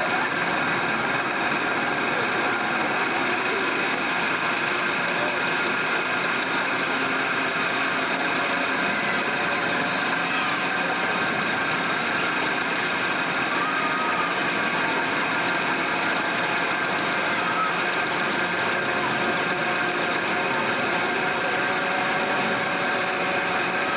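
Amusement park car ride running: a steady drone from its drive machinery, unchanging in pitch and level, with faint voices under it.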